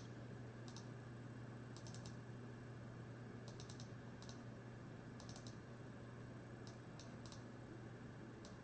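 Faint clicks from working a computer's keyboard and mouse, in small clusters of two to four about a second apart, over a steady low hum.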